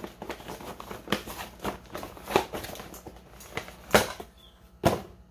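Packaging being opened by hand: irregular crinkling and rustling with sharp snaps and clicks, the two loudest about four and five seconds in.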